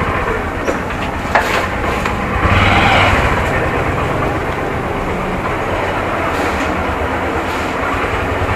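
Motorcycle engine running at idle amid steady vehicle noise, with a few short clicks and a swell in level about three seconds in.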